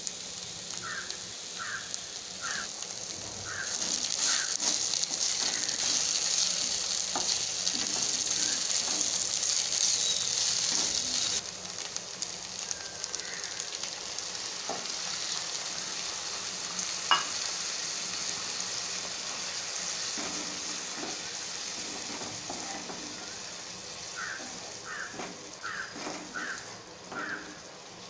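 Brinjal pieces with onion and green chillies sizzling in hot oil in a non-stick pan, stirred with a few light spatula clicks. The sizzle is loudest in the first part, drops suddenly about eleven seconds in, and carries on softer.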